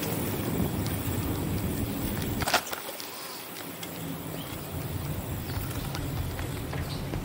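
Bicycle rolling over city pavement: steady road rumble with small rattles and ticks, and one sharp knock about two and a half seconds in.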